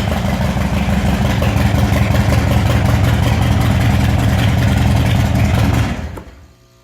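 2007 Harley-Davidson Street Bob's Twin Cam 96 V-twin engine idling with a rapid, even pulse. It is switched off about six seconds in and dies away.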